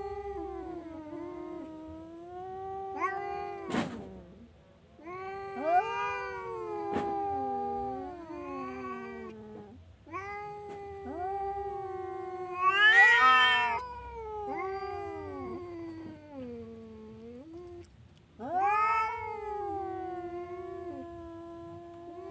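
Domestic cat yowling in a series of long, drawn-out calls, each a few seconds long with short breaks between. About midway one call rises higher and is the loudest. A sharp click comes about four seconds in.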